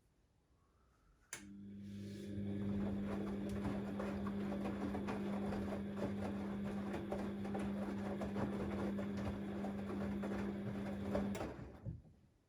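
Siemens Extraklasse XLS 140 A washing machine during its 90 °C boil wash: after a click, the motor starts the drum turning with a steady hum and the churning of wet laundry. It runs for about ten seconds, then stops and coasts down, one tumble stroke of the wash rhythm.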